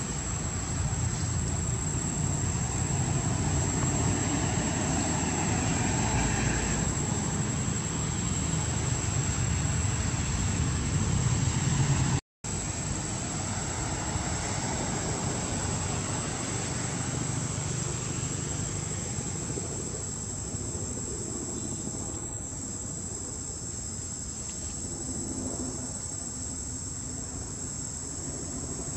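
Steady high-pitched drone of insects over a low rumbling background noise, with a brief dropout about twelve seconds in, after which the rumble is softer.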